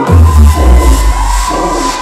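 Dance music playing loud, with a heavy deep bass note held from just after the start until near the end.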